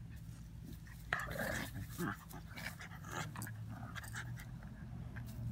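Two puppies, an Old English puppy and a mutt, play-fighting with play growls and panting. The loudest growl comes about a second in and another near two seconds, with a steady low hum underneath.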